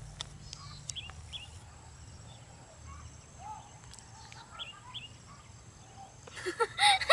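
Quiet rural ambience with a few faint, scattered bird chirps over a low rumble. A much louder noise breaks in near the end.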